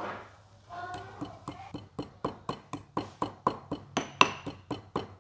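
Stone pestle pounding roasted cumin seeds and black peppercorns in a stone mortar: quick, even knocks about five a second, starting about a second in.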